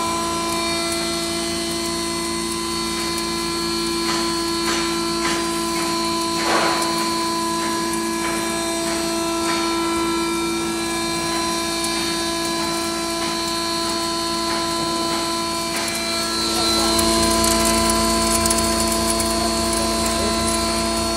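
A 10 HP double-chamber maize grinder running steadily with a hum of several steady tones, and a few knocks about four to seven seconds in. About sixteen seconds in it gets louder and heavier, with more rumble and rattle, as maize kernels are fed from its hopper.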